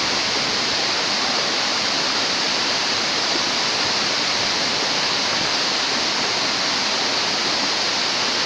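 Waterfall: a steady, loud rush of falling water, unbroken and even.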